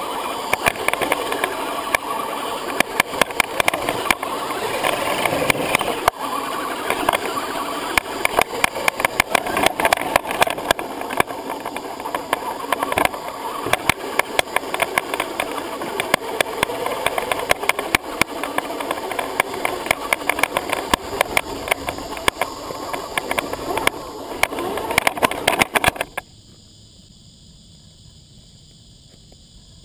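Axial SCX10 Honcho 1/10-scale electric RC crawler driving over rough dirt and rocks, heard from a camera mounted on the truck: a running motor-and-gear sound under a dense clatter of knocks and rattles from the chassis. Near the end it turns much quieter and muffled.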